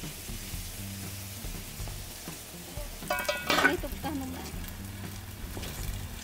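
Steady sizzling and crackling from num krouk cooking in lidded clay pots over a wood fire, with a low hum underneath. About three and a half seconds in, a stainless steel pot lid clinks and rings briefly as it is handled on the clay pot.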